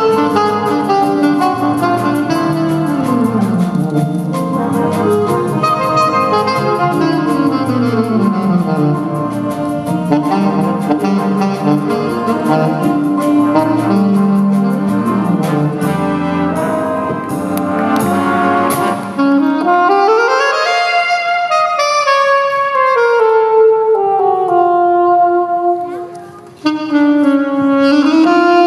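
High school jazz band playing, saxophones and trumpets over a drum kit keeping a steady cymbal beat. About twenty seconds in the drums and low parts drop out and the horns slide up into long held chords, cut off briefly near the end before another held chord.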